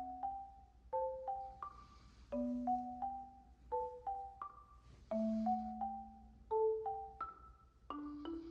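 Background music: a gentle tune of struck mallet-percussion notes, marimba or glockenspiel-like, each note ringing and fading.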